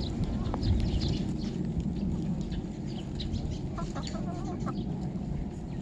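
Chickens clucking in short calls, about half a second in and again around four to five seconds, over a steady low rumble.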